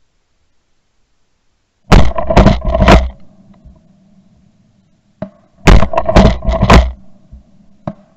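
Shotgun fire in two volleys at pigeons flying overhead, each volley a quick run of several sharp shots within about a second. The second volley comes about three seconds after the first.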